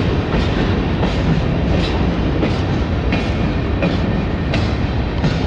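Freight cars of a passing train rolling by close at hand: a steady rumble of steel wheels on the rails, with regular clickety-clack clicks about every two-thirds of a second.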